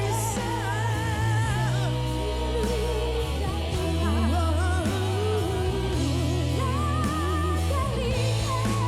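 Live band playing a song, with a wavering, bending melody line, sung without clear words, over a steady bass.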